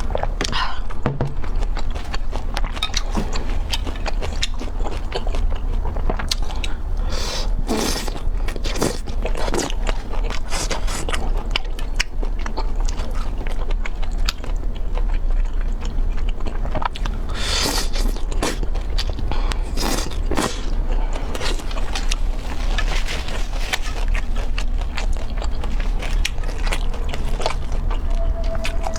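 A person biting and chewing food, with many short, sharp, crunchy clicks over a steady low hum.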